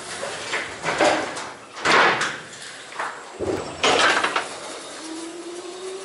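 Forklift rolling a pallet over the steel dock plate into a trailer: a run of loud, clattering bangs. Near the end comes a faint, steady whine that slowly rises in pitch.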